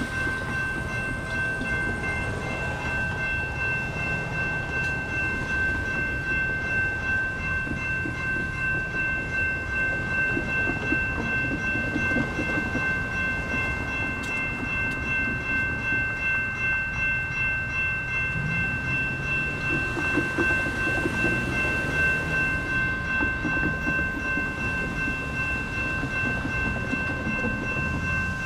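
Railroad crossing warning bell ringing without a break as a steady high-pitched tone while the signals flash, over the low sound of cars driving across the crossing.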